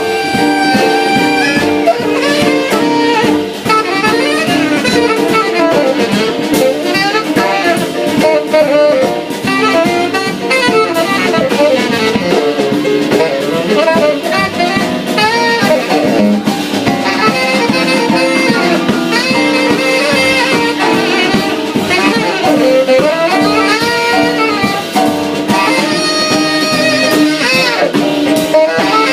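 Jazz band playing an instrumental break, with a saxophone taking the lead over drum kit.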